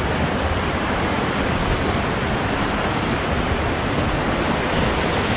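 Creek water rushing over rocks, a steady even hiss.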